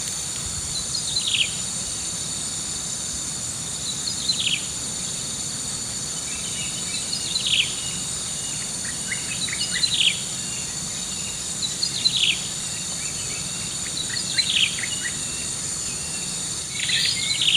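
Night insects, crickets among them, chirring in a steady high drone, with a short falling call from a night animal repeating about every two to three seconds, seven times in all.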